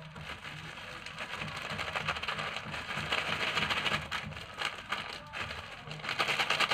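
Thin clear plastic bag crinkling and rustling as it is handled and shaken to mix the dry bait ingredients inside, louder about six seconds in.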